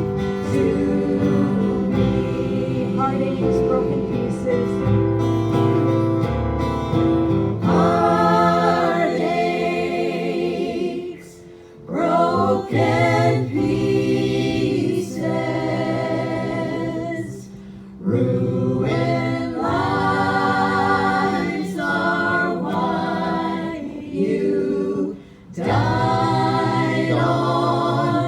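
Voices singing a gospel hymn together, holding long notes with vibrato and breaking off briefly between phrases three times.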